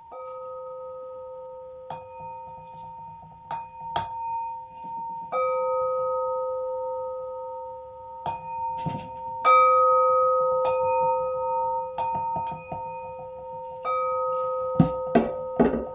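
Bells of a bianzhong bell set struck one at a time, each strike ringing on, across a few different pitches; near the end comes a quick run of several strikes.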